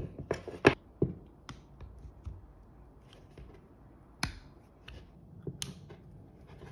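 Irregular sharp clicks and snaps, several close together in the first second and a few more between about four and six seconds in: the old OneWheel handle being worked apart to rip its magnet out.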